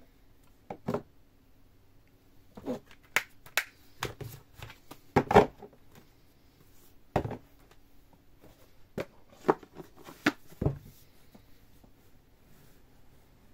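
Plastic DVD cases and a cardboard box set being handled: a dozen or so scattered clicks, clacks and knocks, the loudest about five seconds in.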